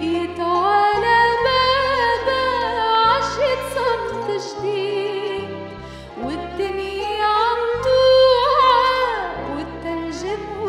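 Woman singing a slow Arabic song into a microphone, her voice wavering with vibrato and ornamented runs, over sustained low accompaniment chords that change every second or so.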